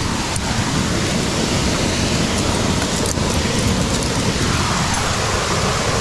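Steady rushing roar of a 40 m waterfall close by, with two faint clicks near the start and about halfway.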